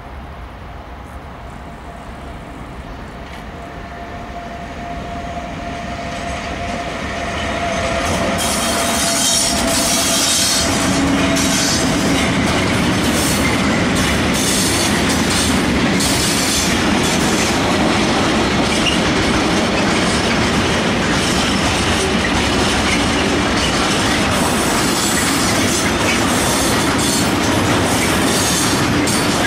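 Freight train behind a red electric locomotive approaching and passing close by. The sound grows steadily louder over the first eight seconds. Then the wagons' wheels keep up a steady clatter, with rapid clicks over the rail joints and high-pitched wheel noise, as a long string of open hopper wagons rolls past.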